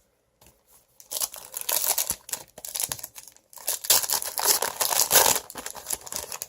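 Foil Yu-Gi-Oh booster pack wrapper crinkling as it is torn open, in two stretches of crackling, the second louder.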